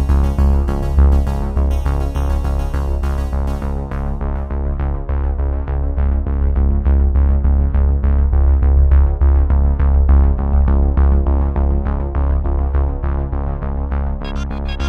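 Electronic synthesizer music with a heavy bass and a quick, even pulse. The treble drops away about four seconds in and comes back near the end.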